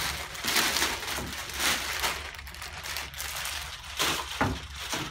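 A large clear plastic bag crinkling and rustling as it is pulled off a 3D printer, a continuous crackle with several louder surges.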